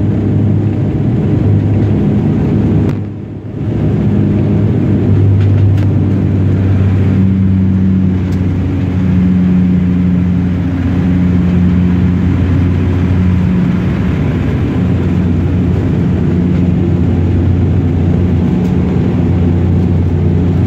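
Steady engine and propeller drone of a regional turboprop airliner heard inside the cabin during the climb after takeoff, a low hum with a steady pitched tone over the rushing noise. The sound dips briefly about three seconds in.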